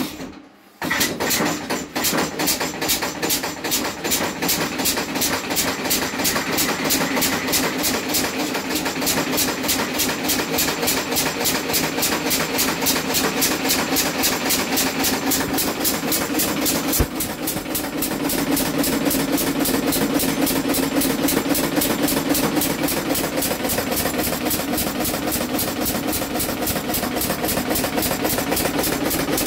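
Hand-built quadricycle's horizontal engine catching about a second in after a few turns, then running steadily with an even, rapid firing beat. A single sharp click sounds partway through.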